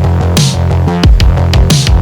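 Background electronic music with a heavy beat: booming bass drum hits, sharp snare hits and a sustained bass line.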